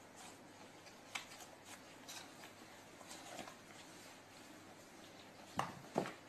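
Faint scratching and rustling of cats pawing at a cardboard tissue box, with scattered light taps, then two sharp knocks about half a second apart near the end as a cat pounces onto the box.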